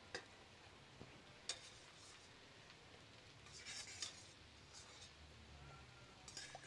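Faint clinks of a metal spoon against a pot and a glass blender jar as cooked tomatoes and chiles are spooned into the blender: a few scattered taps, with a small cluster about four seconds in.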